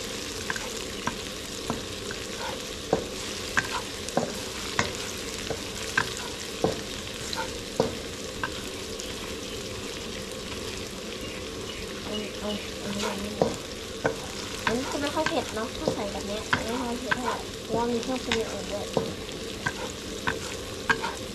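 Food frying and sizzling in a hot pan while a spatula stirs it, with sharp knocks of the spatula against the pan that come irregularly, about one every second, and a busier stretch of scraping and clatter in the second half.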